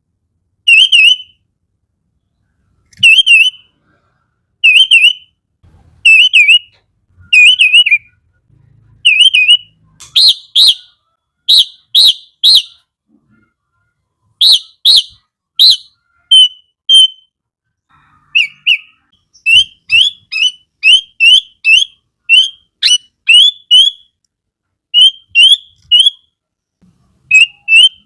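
Sooty-headed bulbul (kutilang) singing: short, bright whistled phrases, each a fraction of a second, separated by pauses. From about ten seconds in the notes go higher and come in quick pairs, and in the second half the phrases follow each other faster, roughly two a second.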